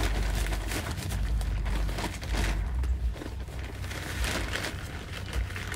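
Rustling and crinkling of a plastic potting-soil bag as soil is scooped out of it to top up a repotted plant, with a low rumble underneath.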